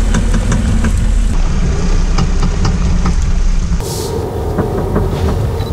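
A Volvo V60 running, with a heavy low rumble and a few light clicks; the sound changes abruptly twice.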